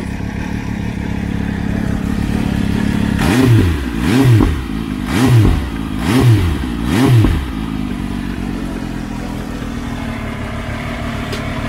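MV Agusta F3 RC's three-cylinder engine idling through an SC-Project exhaust, revved five times in quick succession about a second apart, each blip rising and falling, then settling back to a steady idle.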